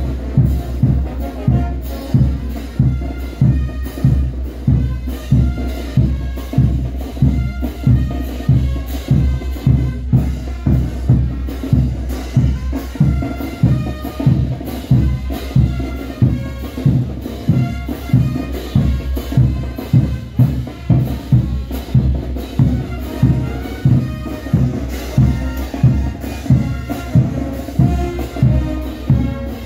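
Morenada festival band music: a steady, even drum beat under a repeating melody on wind instruments.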